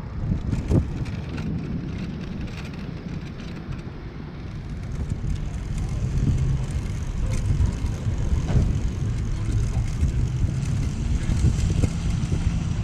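Low, rushing rumble of wind and road noise from a recumbent trike being ridden, growing louder about halfway through.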